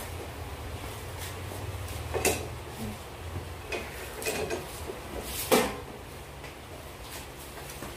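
A few hard plastic knocks and clicks as a stand foot is handled and fitted against the back of a Samsung 65-inch UHD TV, the loudest about five and a half seconds in, over a steady low hum.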